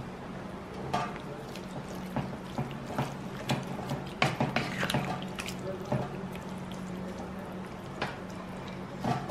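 Spatula stirring liver strips through coconut milk in a frying pan: wet sloshing with irregular scrapes and taps against the pan, over a steady low hum.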